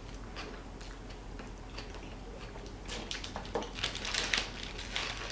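A person chewing and biting food close to the microphone. Sparse mouth clicks at first, becoming more frequent from about three seconds in.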